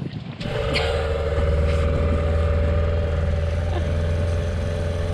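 Small boat's outboard motor running steadily at cruising speed, starting about half a second in.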